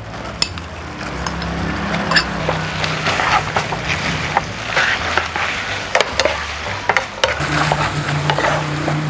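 Blanched squid stir-fried in a sauce in a frying pan: a steady sizzle, with a wooden spatula scraping and knocking against the pan over and over.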